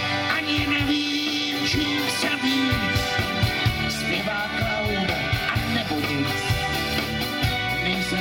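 Live rock band playing a song: electric and acoustic guitars over a drum kit keeping a steady beat.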